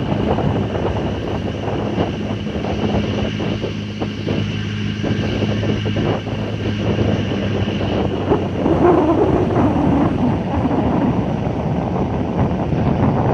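Small boat's motor running steadily under way, with wind buffeting the microphone and water rushing past the hull. The engine's steady hum drops out about eight seconds in, leaving the wind and water noise.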